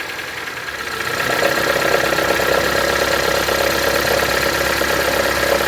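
Honda car engine idling with the automatic transmission just put into drive; about a second in, a steady buzzing rattle sets in and holds under the load. This is the recurring noise on engaging gear, which the mechanic traces to a worn belt tensioner with play.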